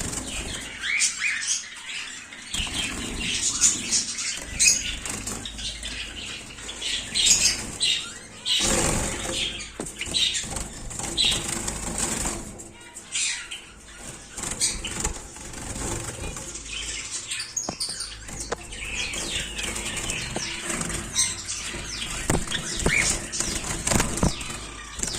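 Mixed pet parrots (lovebirds, cockatiels and sun conures) calling with many short, high chirps and squawks. Their wings flap now and then, loudest about nine seconds in.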